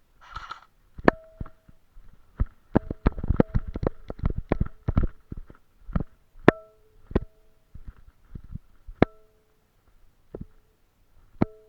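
Airsoft electric gun (AEG) firing: a few single shots, then a slow burst of about fifteen shots over two seconds, then more single shots, some leaving a brief ringing tone. The owner says the below-freezing cold has damaged the gearbox and that the rate of fire has dropped sharply.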